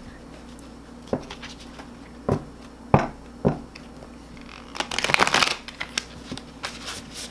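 A new deck of Sacred Self-Care Oracle cards being overhand-shuffled by hand: four separate sharp taps of the cards in the first half, then a quick flurry of cards rattling against each other a little after halfway.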